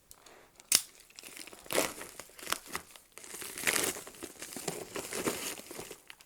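A mailing envelope and its packaging being torn open and crinkled by hand, an irregular crackling, with one sharp snap just under a second in.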